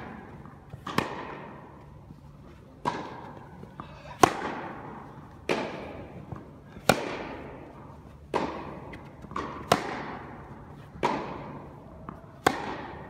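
Tennis rally: sharp racket-on-ball hits about every one and a half seconds, nine or so, alternating louder near strokes and softer far ones, with a few faint ball bounces between. Each hit rings on in the echo of a large indoor tennis hall.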